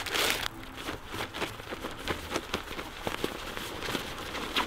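Nylon stuff sack and plastic food packaging rustling and crinkling as food is packed in and the sack is handled at its opening. It is loudest in the first half second, then settles into a light, steady patter of small crinkles.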